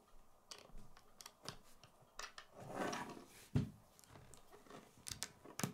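LEGO bricks being handled: scattered small plastic clicks and taps as pieces are pressed together and set down on a wooden table, with a louder knock about three and a half seconds in.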